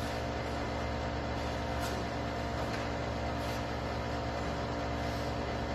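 Steady mechanical hum and hiss with several constant tones underneath, unchanging throughout, with only a few faint ticks and no clear footsteps or voices.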